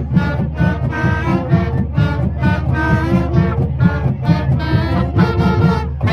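Brass band music playing loudly: horns carrying a tune over a steady drumbeat.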